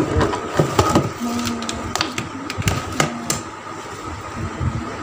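Irregular clicks, knocks and clatter of hands rummaging through a wooden chest of drawers.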